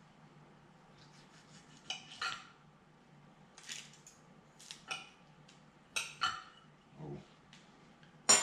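Metal fork and knife clinking and scraping against a plate as food is cut, in short sharp strikes, often in pairs, starting about two seconds in, the loudest clink near the end. A low steady hum runs underneath.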